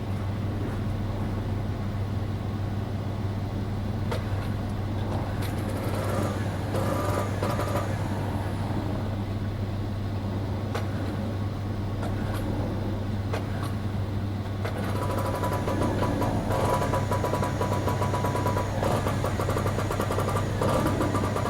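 Portable generator engine running steadily with a constant low hum, growing a little louder and brighter about two-thirds of the way through.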